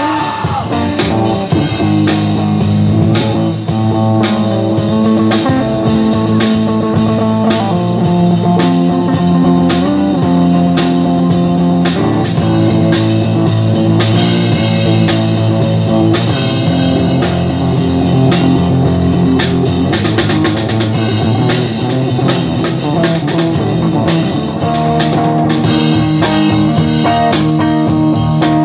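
Live band playing an instrumental rock-blues passage: a drum kit keeping a steady beat under amplified melody instruments with a guitar-like lead, without vocals.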